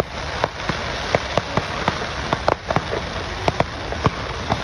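Aerial fireworks bursting overhead: a dense, steady crackling hiss broken by a dozen or so irregular sharp pops.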